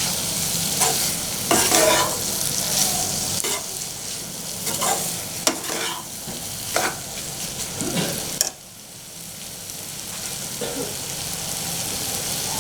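Goat intestine pieces sizzling in oil in a pan while a spatula stirs and scrapes them, with repeated scraping strokes over the sizzle. About eight and a half seconds in, the stirring stops and a quieter sizzle goes on.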